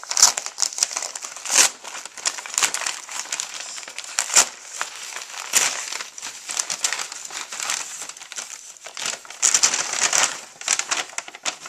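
A plastic Priority Mail mailer bag crinkling and rustling as it is pulled open and shaken out, with sharper crackles at irregular moments and a busier burst of crinkling near the end.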